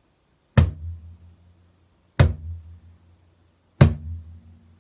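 Three bass strokes (golpe grave) on a Peruvian cajón, the open palm striking the centre of the wooden front plate about a second and a half apart. Each stroke is a sharp slap followed by a deep boom that dies away over about a second.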